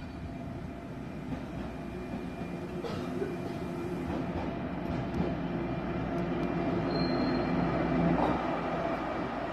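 Diesel shunting locomotive running slowly past on a nearby track, its engine drone growing louder as it approaches and loudest about eight seconds in.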